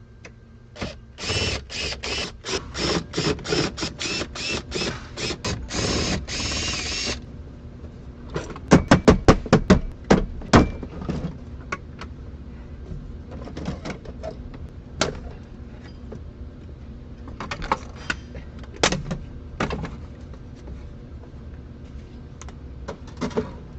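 Car interior teardown with hand tools: first a fast, even run of ringing clicks lasting several seconds, then a cluster of loud sharp snaps and knocks, then scattered clicks as trim and parts are worked loose.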